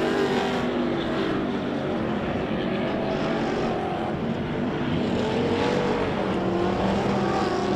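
Engines of several Pro Lite short-course off-road race trucks revving as they race, their pitch rising and falling.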